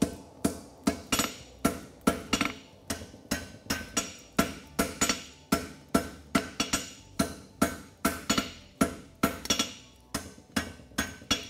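Farrier's hammer striking a red-hot concave steel horseshoe on an anvil in a steady run of sharp blows, about three a second. The blows are forging down the heel caulk on the hind shoe.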